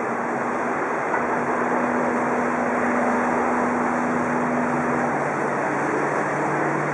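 Motorboat engines running as a fleet of small boats speeds along the river, a steady engine drone mixed with wash. One engine note holds steady for a few seconds and gives way to a lower one about five seconds in.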